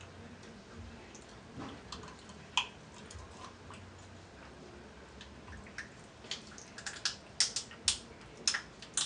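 Shellfish shells being cracked and picked apart by hand: sharp clicks and snaps, a few at first, then coming thick and fast from about six seconds in.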